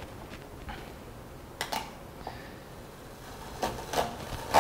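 Gaffer tape being handled and pulled at a tape dispenser: a few short, separate crackles and snaps, the sharpest near the end.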